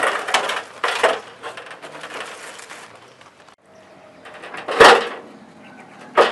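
Metal step ladder clattering and knocking against a concrete water tank as it is lowered inside, with a few knocks in the first second and a loud knock about five seconds in.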